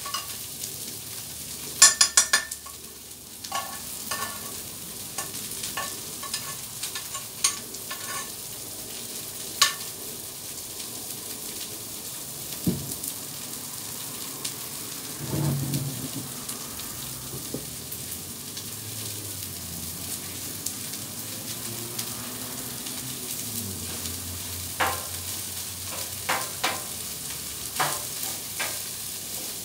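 Chicken, rice and vegetables sizzling steadily on a Blackstone flat-top griddle, with sharp metal clinks and scrapes of utensils against the cooktop; a loud cluster of clanks comes about two seconds in, and more clinks near the end.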